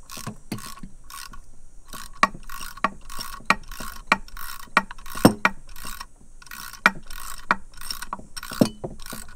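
Hand ratchet wrench clicking in quick back-and-forth strokes, about three a second with a short pause about two-thirds of the way through, as it tightens the bolts holding a 6.0 Powerstroke turbo's exhaust housing.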